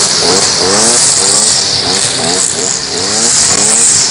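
Petrol brush cutter (motocoasă) running hard with a steady high hiss, its engine pitch rising again and again, about twice a second.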